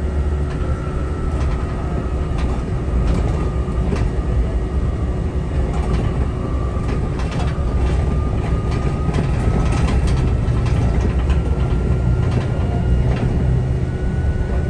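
Inside a city bus under way: a steady low rumble of engine and road, with a thin whine that wavers and climbs slightly near the end, and scattered small rattles and clicks.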